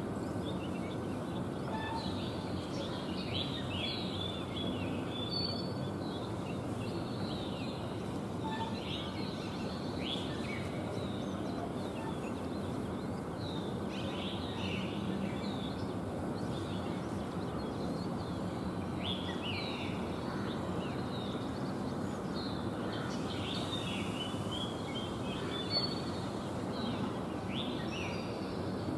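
Small birds giving repeated short, high chirps and twitters over a steady low background rumble, with one brief louder sound near the end.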